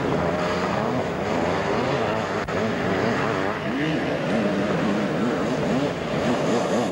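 Several motocross sidecar outfits' engines revving up and down together, their pitches rising and falling over and over.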